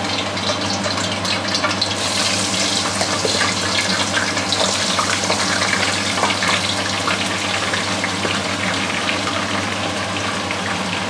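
Salted eggplant slices sizzling and crackling as they fry in hot oil. The sizzle grows louder about two seconds in, over a steady low hum.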